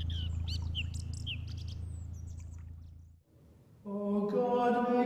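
Birds chirping over a low steady hum that fades away. About four seconds in, a held chanted note begins.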